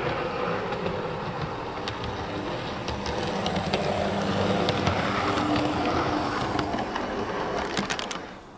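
Hornby Class 153 OO gauge model railcar running along the track, a steady mechanical running noise with scattered small clicks. It grows a little louder in the middle and fades out near the end.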